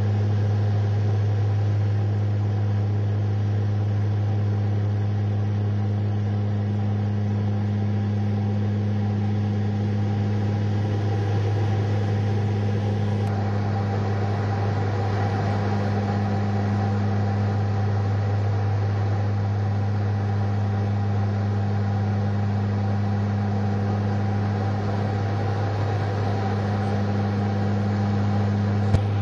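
Cabin drone of a small propeller plane in level flight: a steady engine-and-propeller hum with a strong low tone, heard from inside the cabin. A single short click near the end.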